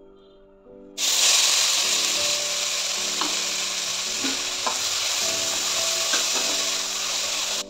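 Sliced onions, ground spices and crushed garlic dropped into hot oil in a stainless steel pot, sizzling loudly from about a second in while being stirred with a steel ladle. The sizzle cuts off suddenly near the end.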